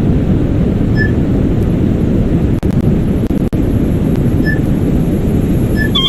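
Passenger lift cab travelling upward with a loud, steady rumble of the ride. Short single high beeps sound about a second in, around four and a half seconds in and near the end: the lift's floor-passing signal.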